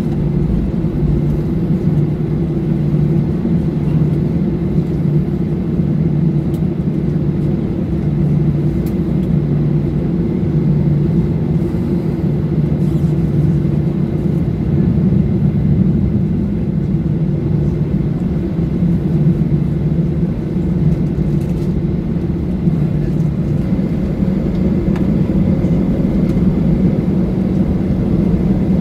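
Cabin noise inside a Boeing 737-800 airliner: the steady low rumble of its CFM56 turbofan engines, holding level without rising or falling.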